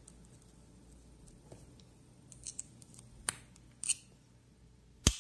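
Small metal parts of a Dunhill Rollagas lighter clicking as it is reassembled: a few light scattered clicks, then one sharp, louder click near the end.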